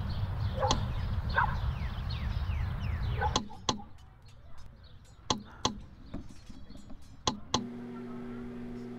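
Outdoor ambience: a low rumble with birds chirping in quick falling notes. After about three seconds this gives way to a quieter stretch with three pairs of sharp knocks. Near the end a steady electric hum, a refrigerator's, takes over.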